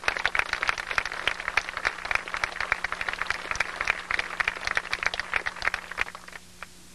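Audience applauding: many hands clapping together, dying away about six seconds in.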